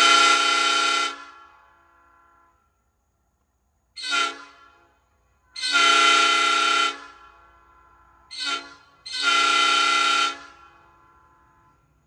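Nathan five-chime locomotive air horn sounding a chord: a blast that cuts off about a second in, then a short, a long, a short and a long honk, each with a brief ring-out after it.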